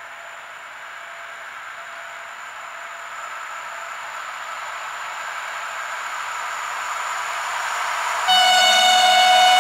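EN57ALc electric multiple unit approaching on the line, its running noise growing steadily louder. About eight seconds in it sounds its horn: a sudden, loud, sustained blast of several tones at once. This is the Rp1 'attention' warning, one long horn sound given for a level crossing.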